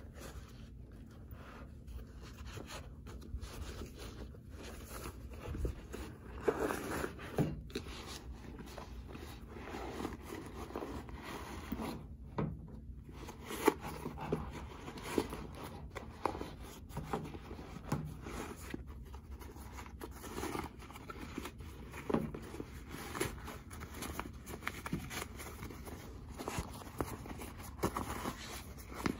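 Hands handling a suede handbag, pulling and turning its fabric lining out: irregular rustling and scraping of cloth and suede, with a few sharper clicks.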